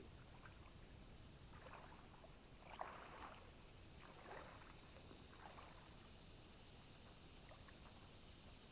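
Kayak paddle strokes dipping into water: four faint splashes, a little over a second apart, over a steady hiss.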